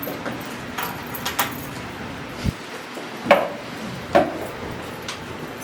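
A few scattered knocks and clicks of people moving about and handling things in a hall, with two sharper knocks about three and four seconds in and a dull low thump just before them.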